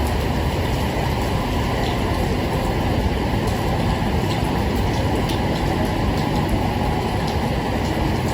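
Steady heavy rain: a dense, even hiss with a deep low rumble underneath and a few faint scattered drop ticks.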